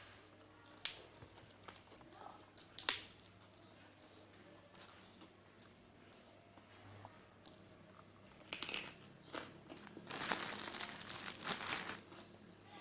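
Crinkling and rustling, as of plastic or paper being handled: a short bout past the middle and a longer one of about two seconds near the end. A sharp click about three seconds in.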